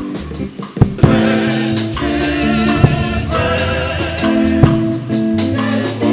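Gospel music: singing comes in about a second in over a band with bass, keyboard or guitar, and drum hits.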